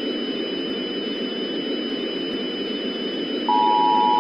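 Steady static hiss with a faint high whine. About three and a half seconds in, a loud steady alert tone starts: the Emergency Alert System attention signal that comes before the warning message is read again.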